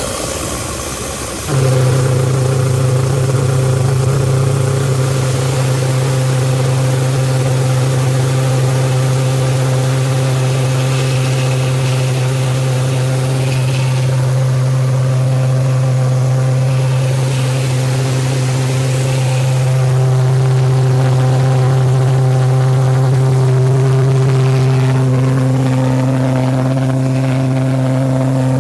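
Propane-fuelled Gluhareff pressure jet engine running. About a second and a half in it jumps suddenly louder and settles into a steady, loud drone with a strong low hum.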